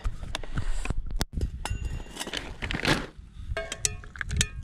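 Camp cookware and gear being handled and set down: scattered knocks and light metallic clinks, with short ringing chinks near the end.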